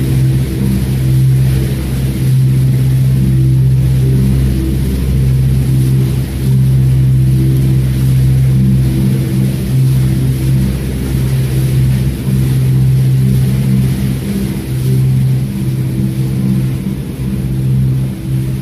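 A canal cruiser's inboard engine running at a steady cruising speed: a constant low drone that holds one pitch.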